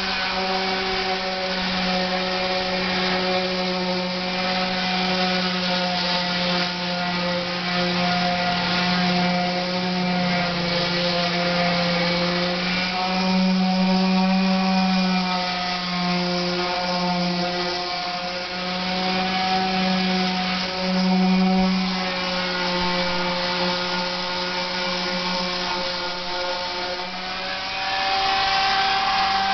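Power sander running continuously on a boat hull's rough fiberglass before gelcoating, its motor hum drifting slightly up and down in pitch over a rasping hiss.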